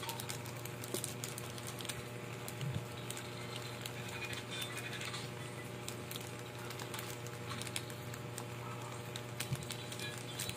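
Light crinkling and small scattered clicks of a camera battery being handled in a clear plastic bag, over a steady low hum.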